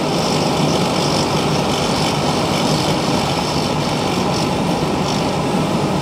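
Homemade pressurized diesel burner firing, its radial blower fan turned up for more air: a steady rushing noise of the fan and the oil flame. The burner is lit and holding a sustained flame.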